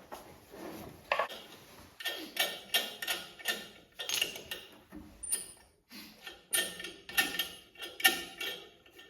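Light metallic clicks and clinks, about two to three a second in two runs with a short pause between, from a hand tool working the screws that hold the air filter cover on a John Deere X320 garden tractor as they are loosened.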